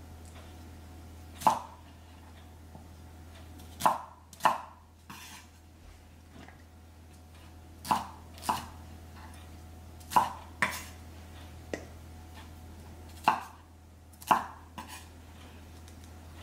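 Santoku knife chopping green bell pepper on a wooden cutting board: about a dozen sharp knocks of the blade on the board, irregularly spaced a second or more apart, several in quick pairs.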